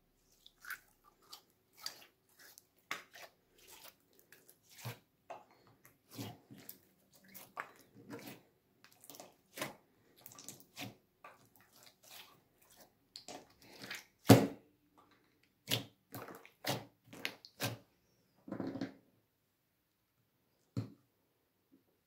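Clear slime being stretched and squeezed by hand, giving irregular sticky clicks and pops, with one louder pop a little past halfway.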